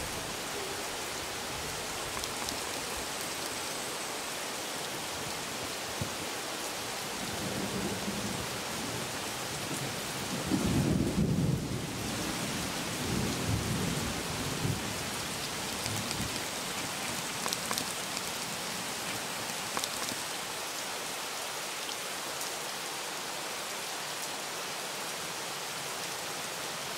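Steady rain hiss, with a rumble of thunder that rises about ten seconds in and fades over a few seconds.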